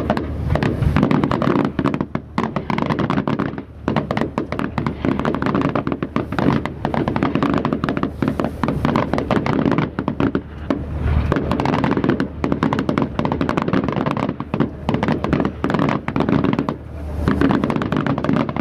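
Fireworks display: a rapid, near-continuous run of bangs and crackles, with only brief let-ups.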